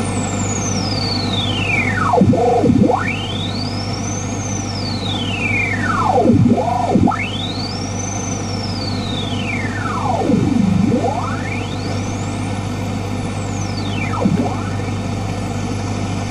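Analog radio tuning sound: a whistling tone over static sweeps down and up in pitch about four times, each swing taking a few seconds, with a steady low hum underneath.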